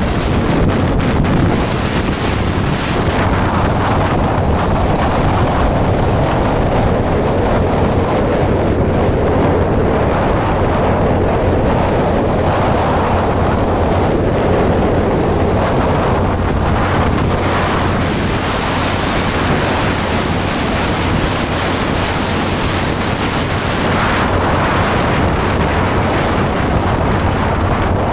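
Loud, steady wind rush on the microphone from a motorcycle at highway speed, with the motorcycle's engine and road noise running underneath.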